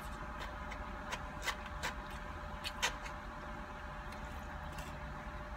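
A fork clicking and scraping against a plate of takeout food about six times in the first three seconds as rice is scooped up, over a steady low hum inside a car.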